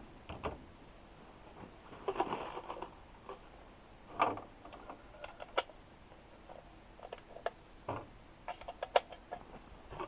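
Handling noise: scattered small clicks and knocks, sharpest about four, five and a half and nine seconds in.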